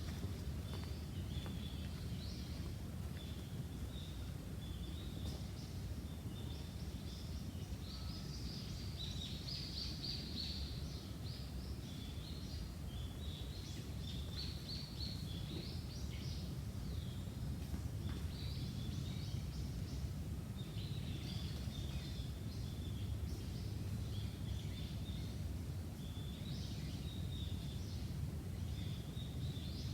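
Small birds chirping and calling in scattered bursts, over a steady low rumble.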